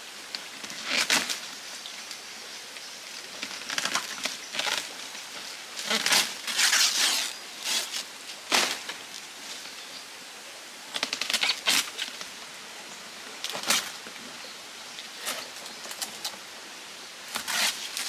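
Green palm fronds rustling in short bursts as they are handled and fastened onto the shelter, over the steady hiss of a flowing stream.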